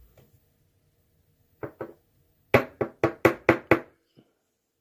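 Sharp knocks of a dismantled ASSA Twin lock cylinder's parts being tapped against a hard surface: two knocks, then a quick run of six at about five a second.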